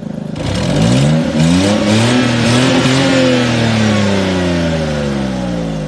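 Freshly rebuilt V8 engine of a 2021 Range Rover Sport SVR starting up and revving: the engine note climbs steadily for about three seconds, then slowly drops back toward idle.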